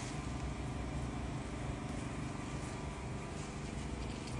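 Steady low mechanical hum of a running engine.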